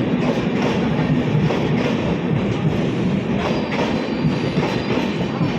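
Indian Railways train running steadily, its wheels clattering rhythmically over the rail joints.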